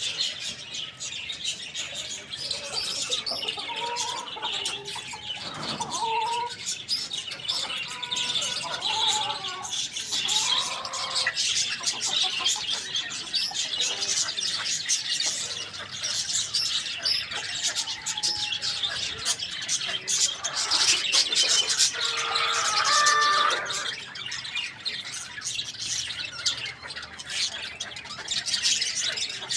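Many small birds chirping and chattering busily and without pause, with a few lower, short calls mixed in.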